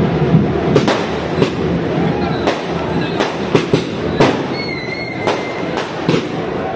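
Firecrackers and fireworks going off in irregular sharp bangs over a continuous dense din, with a short wavering whistle about five seconds in.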